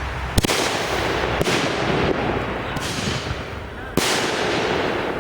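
Consumer fireworks going off in quick succession: sharp bangs, the loudest about half a second in and near four seconds, each trailing off into a crackling hiss.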